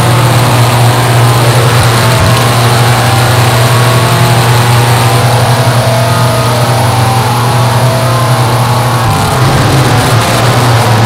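Harsh noise recording: a loud, unbroken wall of distorted static with a steady low drone underneath, changing little over the stretch.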